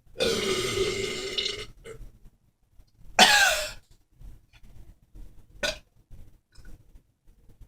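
A man belching on command. A long, low belch lasts about a second and a half, then a shorter, louder belch with a wavering pitch comes about three seconds in.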